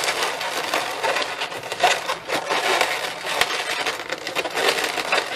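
Inflated latex modelling balloons squeaking and creaking against each other and under the fingers as a round balloon is pushed in between the white and orange balloons, an irregular rubbing crackle that runs on without a break.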